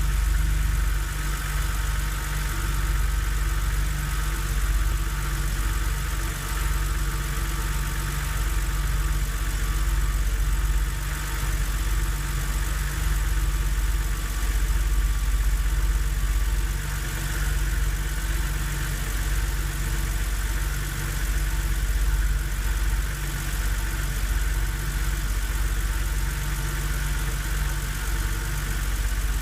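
BMW Z4 3.0si's three-litre straight-six idling cold, with a loud knock in the running. It is a cold-start noise that sets in once the idle settles and, by the owner's account, goes away after about 15 minutes of driving.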